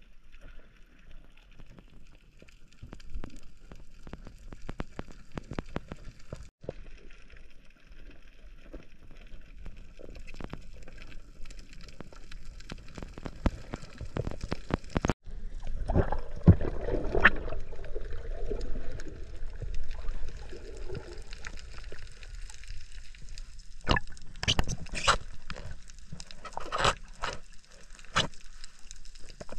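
Underwater sound picked up by a diver's camera: water gurgling and sloshing with many scattered sharp crackling clicks, and a louder stretch of churning water a little past halfway.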